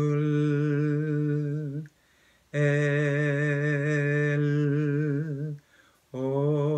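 A man's voice holding long sung vowels on one low, steady pitch, each carried on into an L: an English pronunciation drill. The first note ends about two seconds in, the second runs about three seconds with a slight waver, and a third begins near the end, with short breaths between them.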